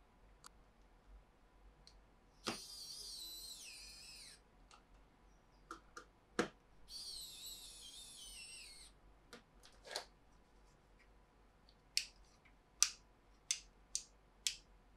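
ARROWMAX pen-style cordless electric screwdriver driving M3 screws into the 3D-printed plastic shell: two whirring runs of about two seconds each, the first dropping in pitch as it ends. Sharp clicks follow, several in quick succession near the end.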